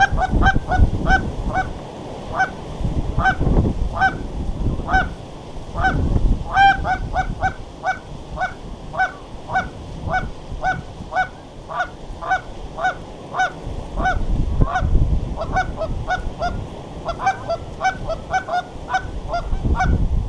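Canada geese honking, many short two-note calls in quick, uneven succession throughout. Wind buffets the microphone in gusts underneath.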